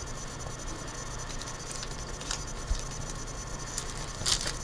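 Quiet handling of trading cards and a foil card pack: light rubbing and small ticks over a steady low hum. A short crinkle of the pack wrapper comes near the end as it starts to be torn open.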